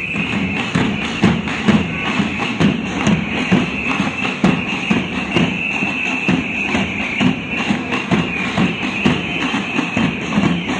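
Protest drums beating a steady, rhythmic pattern of thuds, with a continuous high-pitched tone held over them.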